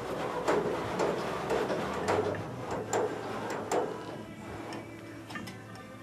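Piper J-3 Cub's stabilizer trim being worked through its cables and jack screw: a mechanical clicking about twice a second that fades after about four seconds.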